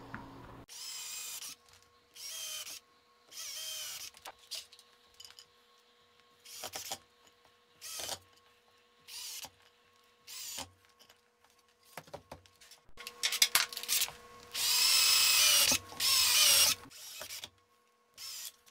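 Cordless drill/driver driving screws into the corners of a half-inch plywood drawer box. The motor runs in a series of short bursts of under a second with pauses between them, then in two longer, louder runs in the later part as screws are driven home.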